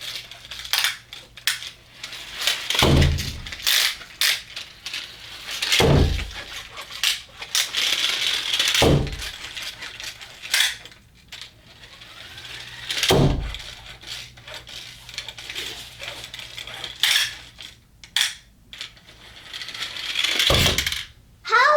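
Die-cast metal Mustang GT pull-back toy cars being handled and raced on a hard surface: constant clicking and clattering of metal and plastic, with a whir and about five heavier knocks spread through.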